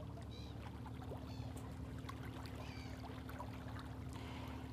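Faint outdoor background at the water's edge: a low steady rumble with a steady hum, and a few faint high chirps.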